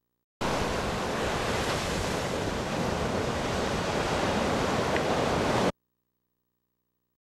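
Steady rush of ocean surf with wind on the microphone. It starts suddenly about half a second in and cuts off suddenly after about five seconds.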